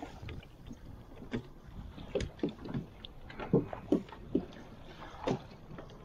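A crab pot being hauled up into a small boat: irregular knocks and splashes of water, with no engine running.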